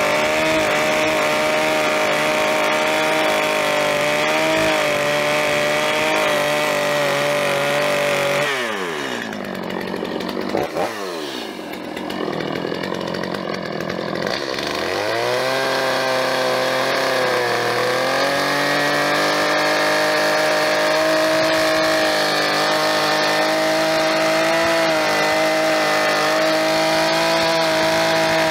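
Gas chainsaw running at high revs, cutting into the cabin's wall logs. About eight and a half seconds in it drops to idle, blips once, then revs back up around fifteen seconds in and runs steady again.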